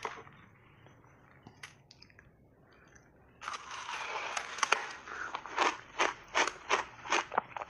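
A few faint clicks, then about three and a half seconds in a big bite crunches into a block of snow-white crunchy ice dipped in passionfruit pulp, followed by steady crunchy chewing of the ice, about three crunches a second.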